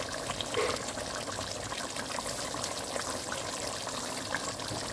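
Thick chicken curry simmering in a pot on a lit stove: a steady hiss with small bubbling pops.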